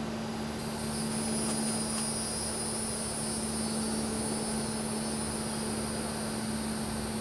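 Steady high-pitched insect buzzing that sets in about half a second in, over a constant low mechanical hum.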